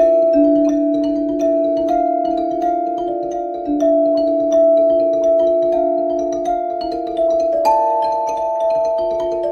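Background music of ringing mallet-percussion notes, each struck and fading slowly over held tones.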